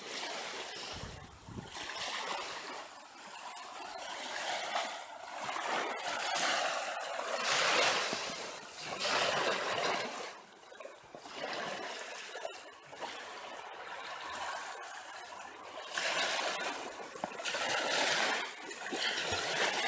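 Small waves washing up onto a sandy beach, the surf swelling and fading every few seconds.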